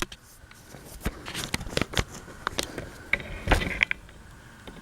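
Scattered light clicks, taps and scrapes of handling, irregular and of varying strength, over a faint steady whine.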